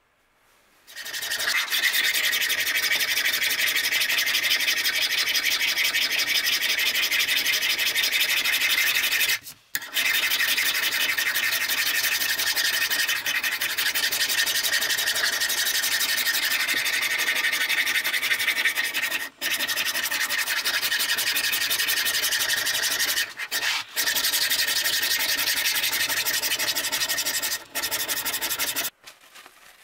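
Hand file and abrasive block scraping in fast, continuous strokes across the cast-iron soleplate of an old Schuerhoff iron, sped up to double speed. The scraping starts about a second in and stops briefly a few times.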